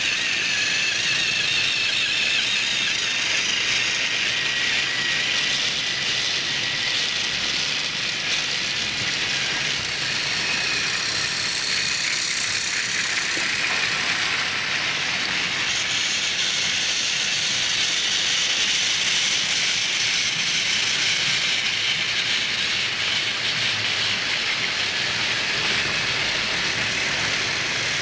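Battery-powered plastic toy trains running on plastic track: a steady high motor whir with the rattle of small wheels and wagons.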